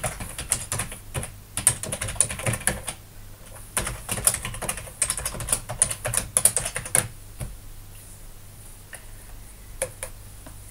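Typing on a computer keyboard in two quick runs of key clicks, a username and then a password entered at a git push login prompt, followed by a few single key presses near the end.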